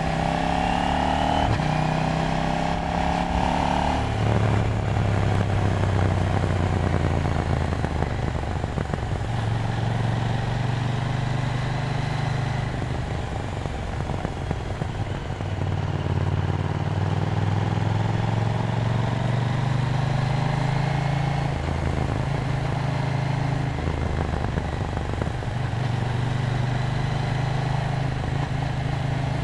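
KTM Duke 790's parallel-twin engine running on the move, its pitch climbing for the first few seconds and dropping suddenly about four seconds in, as at a gear change, then holding steadier with a few shifts in pitch. Wind noise runs under it.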